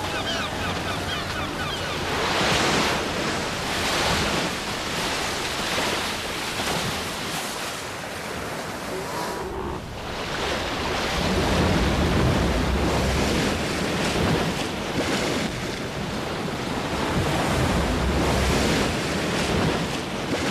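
Ocean surf breaking and washing up on a beach, wave after wave in slow swells, with wind.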